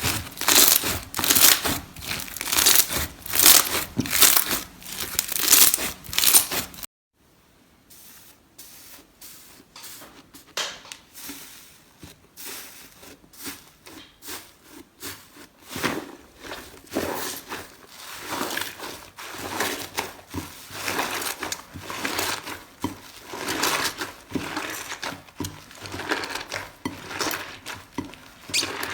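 Slime being squished and stretched by hand, making dense crackling and crinkling pops. About seven seconds in the sound drops off abruptly, then the crackling resumes more quietly and builds up again.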